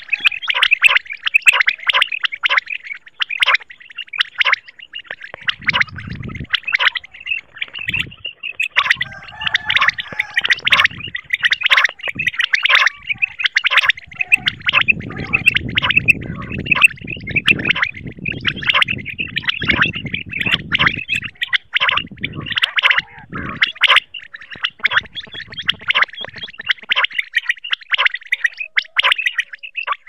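Common quail (batair) calls, a dense run of rapid, overlapping high chirping notes without pause, recorded as a lure call for netting quail. Bursts of low rumble run under the calls around the middle.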